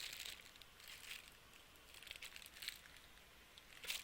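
Faint rustling and crinkling of kit packaging as parts are handled, in a few short bursts.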